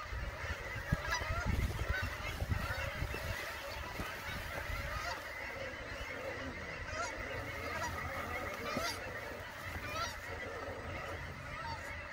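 A flock of geese honking, many short calls overlapping into a steady chatter, with some low rumbling in the first few seconds.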